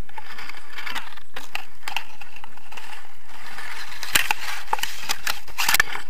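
Rustling and crackling of grass stalks and paraglider harness gear being handled close to the microphone, with irregular clicks that sharpen about four seconds in and again near the end.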